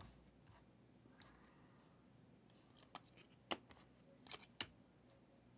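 Trading cards being handled on a table: a handful of short, sharp clicks and taps, about three to four and a half seconds in, against near silence.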